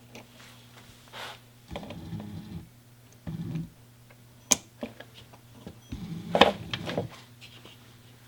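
Small metal clicks and handling noises as a circlip is fitted to hold the cam on the throttle cable distribution box, with one sharp click about four and a half seconds in and a steady low hum underneath.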